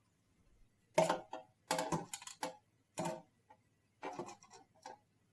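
Sharp clicks and knocks of a hard drive and its drive cage being handled while the drive is taken out of a PC case, with several small clatters in quick succession.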